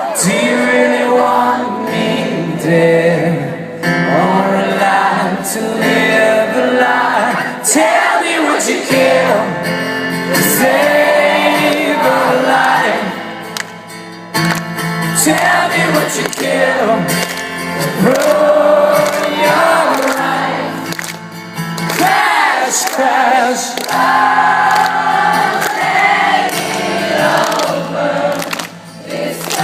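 Live rock band music with singing voices, recorded in a concert hall.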